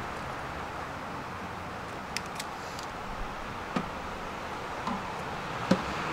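Steady street traffic noise with a few light knocks, about five, spread through the second half, as giant hollow plastic chess pieces are handled and set down on the board; the sharpest knock comes near the end.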